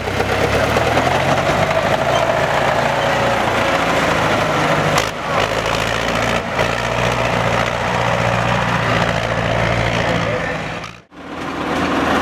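Old tractor's diesel engine running steadily under load as it drives through mud. Near the end the sound cuts out briefly and a second tractor engine comes in.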